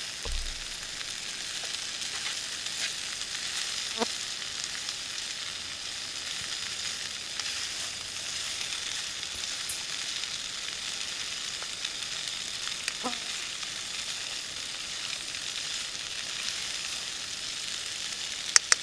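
Shrimp, vegetables and pasta sizzling in olive oil in a pot on a backpacking stove, a steady high hiss, while a utensil stirs them and clicks against the pot a few times, several quick clicks near the end.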